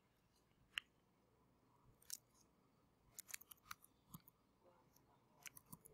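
Faint keyboard keystrokes typing a short terminal command: a couple of single clicks, then a quick run of keys about three seconds in and another near the end.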